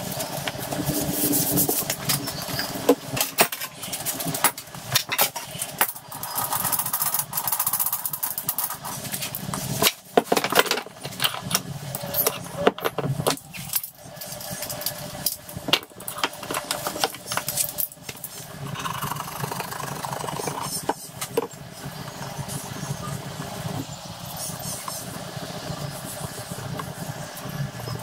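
Pine boards being handled on a wooden workbench: irregular knocks and clatters as the boards are shifted, set down and tapped against one another.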